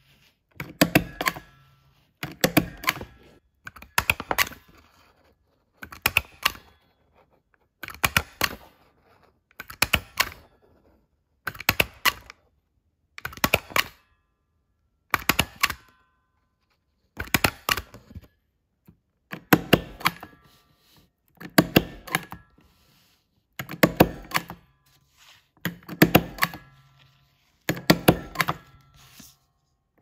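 Metal desk stapler stapling paper again and again, about one stroke every two seconds. Each stroke is a quick cluster of two or three sharp clicks as the staple is driven through the sheet.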